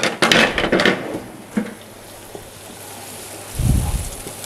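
Blended green chili and dried shrimp spice paste frying in hot oil in a pan, a steady sizzle with a dense burst of crackling in the first second. Near the end there is a dull low thump as a wooden spatula starts stirring the paste.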